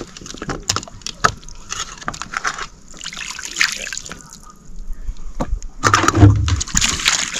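Water sloshing and splashing in a vessel, with scattered clicks and knocks throughout and a low rumble near the end.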